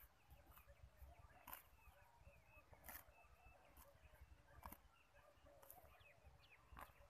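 A water buffalo tearing grass as it grazes: five faint, crisp rips about a second to a second and a half apart.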